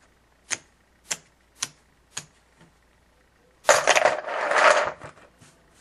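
Four sharp clicks about half a second apart, then a dense clatter of clicks lasting just over a second, like keys or small hard objects being handled.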